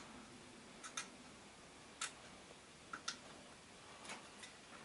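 Faint sharp clicks, about one a second with a few softer extra ones in between: a ticking.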